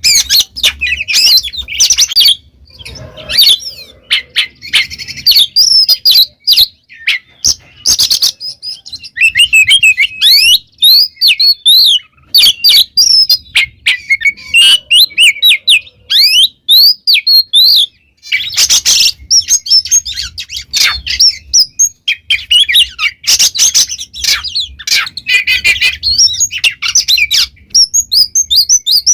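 Oriental magpie-robin (kacer) singing a loud, continuous song of rapid, varied whistles and sliding notes mixed with harsh chattering, broken by a few brief pauses.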